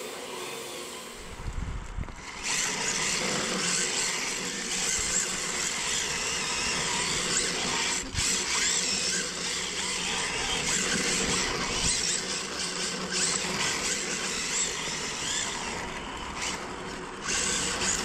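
Yokomo YD-2S RC drift car running on rough pavement: its brushless electric motor whines and the tyres rush over the ground, getting louder about two seconds in and holding steady, with a brief dip near the end.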